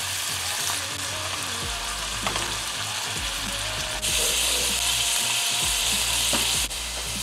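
Food sizzling and frying in a hot pot, likely the bolognese sauce being cooked, with a few short scrapes of stirring. The sizzle gets louder for a few seconds past the middle, then drops back.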